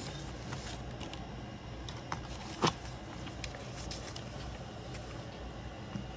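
Light rustling and small taps of a paper planner being handled and its pages turned, with one sharper click about two and a half seconds in, over a steady low hum.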